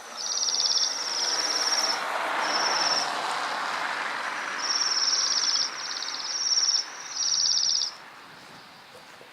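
A small bird's high, rapid trilled calls, about seven short trills in a row, each under a second, stopping near the end. A soft rushing noise swells underneath in the middle.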